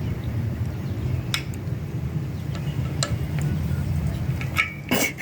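A few faint metallic clicks and clinks of parts and tools being handled on an engine, over a steady low hum.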